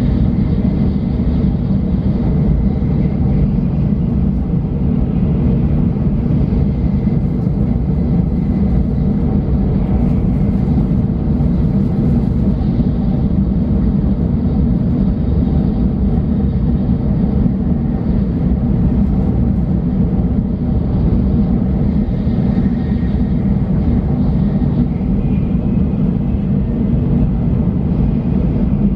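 Steady low rumble of a Tokaido Shinkansen running at speed, heard inside the passenger cabin, with faint steady whines above it.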